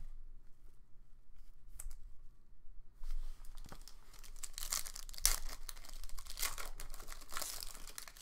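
Foil trading-card pack being torn open and its wrapper crinkled: quiet for the first few seconds, then dense crinkling and tearing from about three seconds in, in two louder spells.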